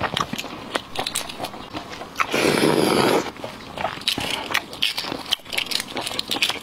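Eggshell crackling and clicking as braised fertilized eggs (huozhuzi) are cracked and peeled by gloved hands, with a louder crushing, crinkling burst lasting about a second near the middle.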